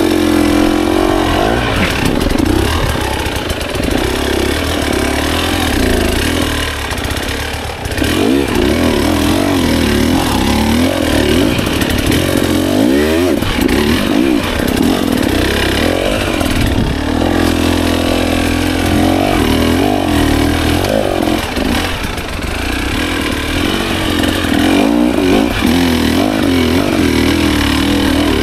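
KTM EXC 300 TBI's single-cylinder two-stroke engine under the rider's throttle, its pitch rising and falling over and over as the bike is worked slowly over rough ground, with a short drop in revs about eight seconds in.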